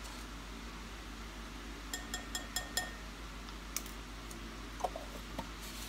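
A run of five quick, lightly ringing taps about two seconds in, then a few softer clicks and knocks: baking powder being spooned and tapped into a glass mixing bowl. A steady low hum runs underneath.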